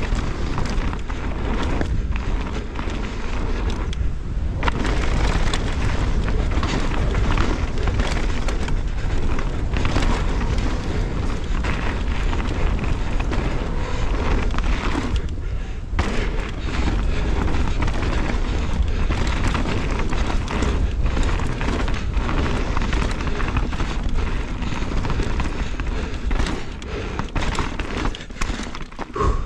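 Fast mountain-bike descent heard on an action camera: wind buffeting the microphone, with tyres crunching over dirt and gravel and the bike rattling over bumps. The rush dips briefly about four seconds in and again midway.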